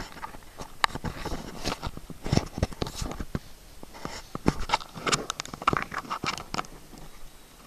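Handling noise close to the microphone: a toddler's hand grabbing and rubbing at the camera, giving scattered taps, clicks and scrapes.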